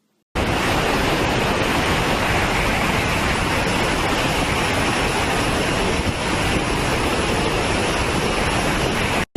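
A loud, steady rushing noise that starts suddenly just after the beginning and cuts off abruptly near the end.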